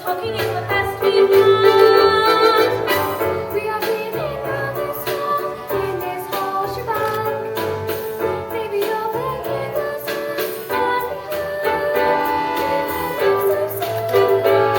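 Song from a stage musical: voices singing a melody over instrumental accompaniment with a bass line and percussion.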